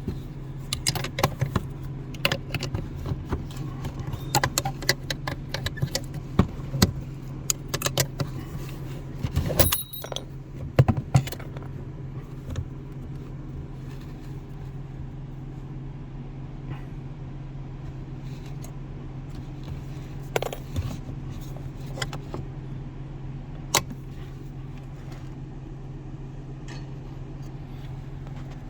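Metallic clicking and rattling of hand tools and parking-brake cable hardware being worked under a dashboard, dense and irregular for about the first twelve seconds, then only a few isolated clicks. A steady low hum runs underneath.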